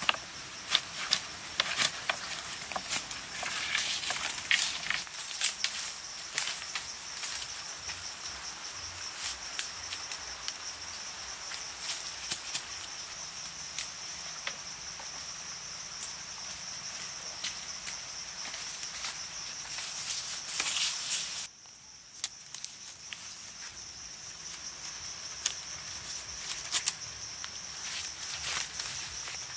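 Steady high-pitched insect drone of the forest, with scattered clicks and taps from wooden stakes and soil being handled, thickest in the first few seconds. The drone and all other sound cut out for about a second two-thirds of the way through.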